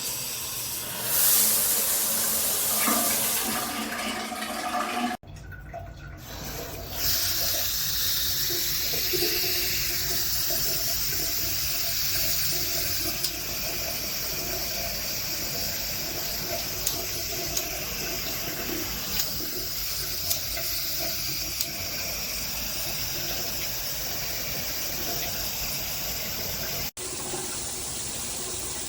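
Water spraying steadily from a SparkPod filtered shower head. The sound cuts off abruptly and resumes about five seconds in, and again near the end.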